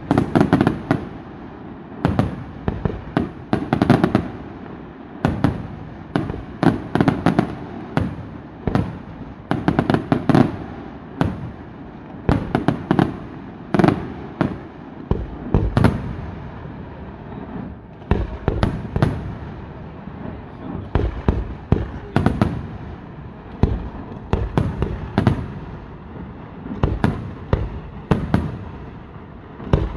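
Fireworks display going off: volleys of sharp bangs and pops, several shots in quick succession in each volley, about every second or two, with crackling in between.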